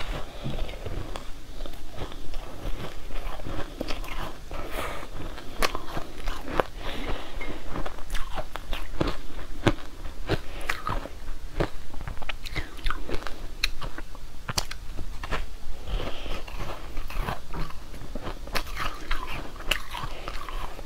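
Close-miked biting and chewing of a pink frozen food, with many sharp crunches one after another at an uneven pace.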